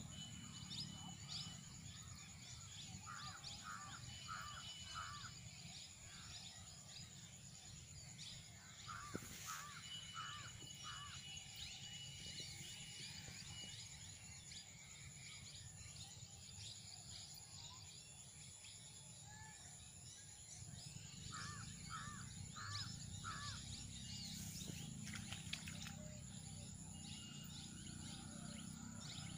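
Rural field ambience: a bird calls in runs of four evenly spaced notes, three times, over many small high chirps and a steady high insect buzz.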